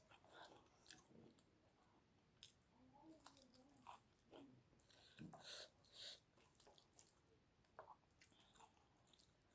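Faint, close-miked chewing: a person eating, with irregular short wet mouth smacks and clicks.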